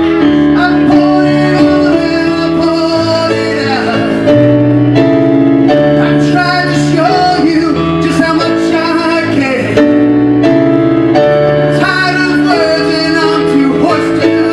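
A man singing a slow song into a microphone over electronic keyboard accompaniment, holding long notes with vibrato while the keyboard chords change every couple of seconds.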